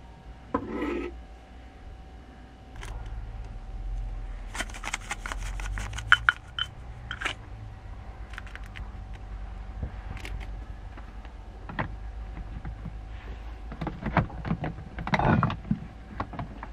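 Hands preparing food in a small kitchen: a knock about half a second in, then a pepper grinder clicking rapidly for about three seconds and a few more clicks after. Louder knocks and scrapes near the end as things are handled and set down.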